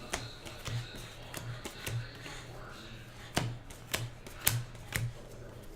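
Trading cards being handled, flipped and set down, making a series of irregular sharp clicks and snaps, the loudest about four and a half seconds in.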